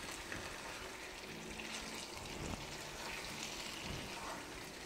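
Thick chicken curry sizzling steadily in a nonstick frying pan as it is stirred with a wooden spatula, with a few soft scrapes of the spatula.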